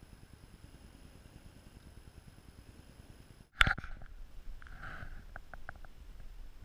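Low rumbling noise on a GoPro's microphone, with a faint steady high whine. About halfway through it cuts off at an edit with one sharp, loud click. After that there is a quieter open-air background with a few faint short sounds and a quick run of small ticks.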